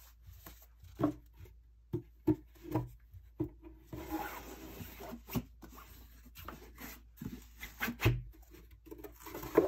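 Handling noise from a large book and its slipcase on a wooden surface: scattered light knocks and rubbing, a rustle about four seconds in and a dull thump about eight seconds in.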